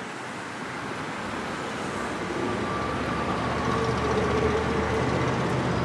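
Freight train of double-stack container cars rolling over a steel girder bridge, mixed with cars driving on the street beneath. The rumble grows steadily louder, and a thin steady squeal comes in about halfway.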